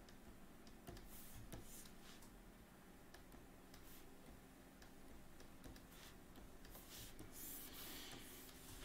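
Faint scratching of a stylus drawing strokes on a drawing tablet: a few short scattered strokes, then a denser run of strokes near the end, over a low room hum.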